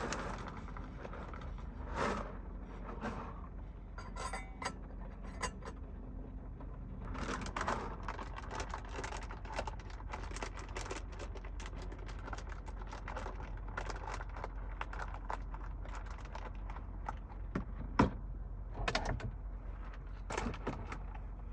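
Cooking in a small space: rustling and crinkling of a food packet being handled, with light clinks and scrapes of cookware and one sharper click near the end, over a steady low hum.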